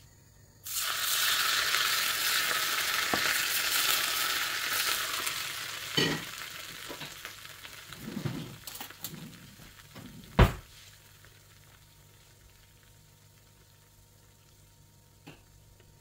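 Hot fat poured into the hollow of a clay bowl of moong dal khichdi sizzles at once and slowly dies down. Two sharp knocks come in, the louder one about ten seconds in.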